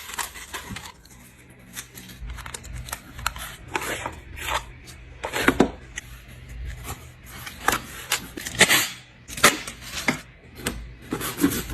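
Packaging being handled during an unboxing: irregular crinkling and rustling, with sharp crackles every half second or so.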